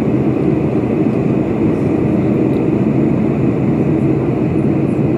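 Steady, even rumble of engine and airflow noise inside the passenger cabin of a Boeing 747-400 descending on approach, heard at a window seat by the wing.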